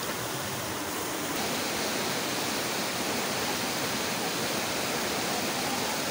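Steady rush of running water: a shallow rocky stream, with water spilling from a wooden spout into the pool and jugs below.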